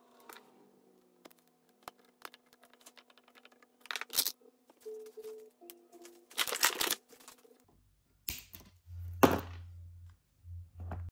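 Background music with sustained notes, a deep bass part coming in about eight seconds in. Over it come several sharp clicks and rattles from a roller chain and cable tie being handled, the loudest about nine seconds in.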